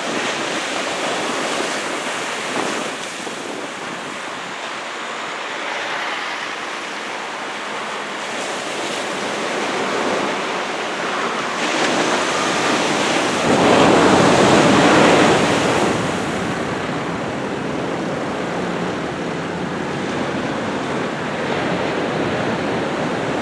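Ocean surf breaking and washing in a steady roar of noise, with one louder wave crash in the middle. Wind buffets the microphone.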